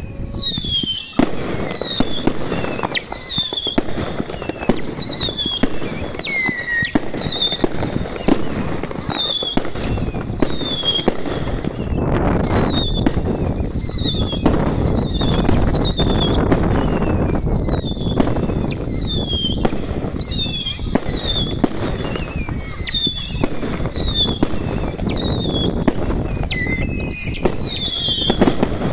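Fireworks firing a long run of whistling shots: falling whistles, about one or two a second and overlapping, over a continuous rumble and sharp bangs.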